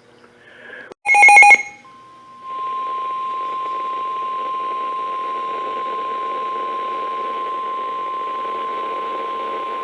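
A brief, loud electronic burst about a second in. About two seconds in, a steady single-pitch emergency alert tone starts: the NOAA Weather Radio warning alarm near 1 kHz, held over radio hiss, which signals a warning broadcast is about to follow.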